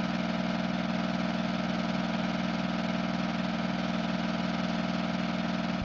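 Film projector sound effect: a steady mechanical whirring with a fast, even flutter, like an old movie projector running.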